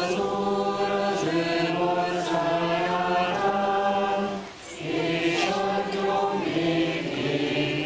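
A group of voices singing a slow melody together in long held notes that step from one pitch to the next. There is a brief break a little past halfway, like a breath between phrases.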